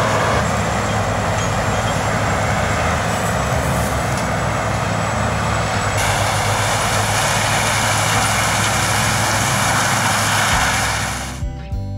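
Sugarcane harvester working in the cane, its engine running steadily with a dense rushing noise over the hum. The sound changes abruptly about halfway through. Acoustic guitar music starts near the end.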